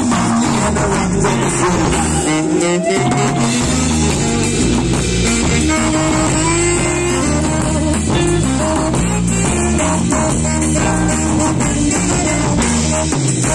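Live band playing rock-style music, led by an electric guitar over a drum kit.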